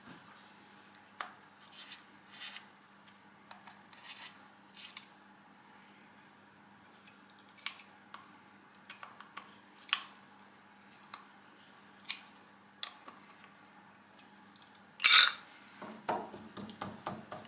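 Light metal clicks and taps as a metal collar on a mandrel is turned and positioned by hand on a milling machine table, with one sharp, much louder clank a few seconds before the end followed by a quick run of small rattles.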